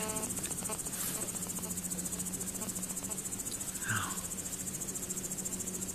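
Grasshoppers stridulating: a steady, high-pitched, finely pulsed trill that does not let up, with one brief sliding call about four seconds in.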